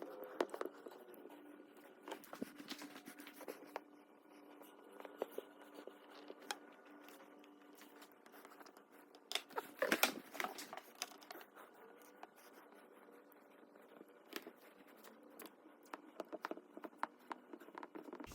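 Quiet hand work with tape at a car windshield: scattered crinkling, scratching and light taps, with a denser burst of crinkling about ten seconds in, over a faint steady hum.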